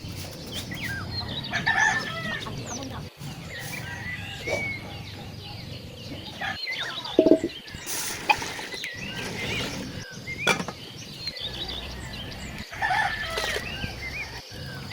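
Birds calling over and over, many short chirps and calls, with louder clusters about two seconds in and near the end, over a low steady background hum.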